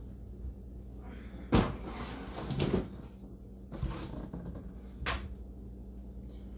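Cardboard shipping box and packing being handled as a sewing machine is worked out of it: a few separate knocks and scuffs, the loudest about a second and a half in.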